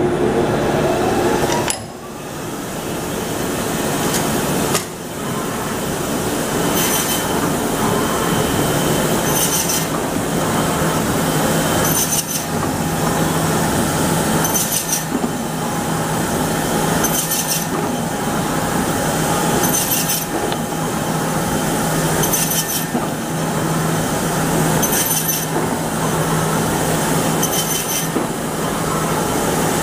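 Pacific Y420A automatic meat bandsaw running steadily, with a rising whine in the first couple of seconds. A short high burst repeats about every two and a half seconds as the machine cycles through each slice.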